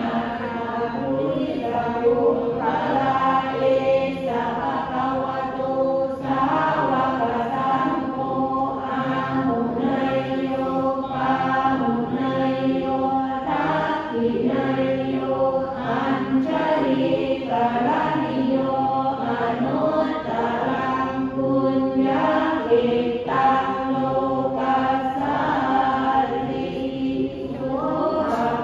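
A group of voices chanting Buddhist prayers together in unison: a steady, near-monotone recitation in held pitches, phrase after phrase without pause.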